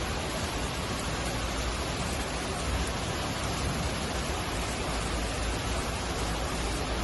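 Steady rushing hiss of heavy rain and running water during a flash flood.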